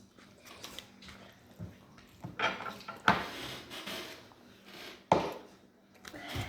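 Eating sounds: biting into and chewing a breaded fried chicken tender, with light clatter of the food being handled. A few sudden sharp sounds stand out, the loudest about five seconds in.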